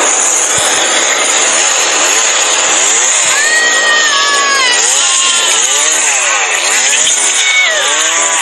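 Chainsaw running and revving up and down over and over, with screams over it partway through.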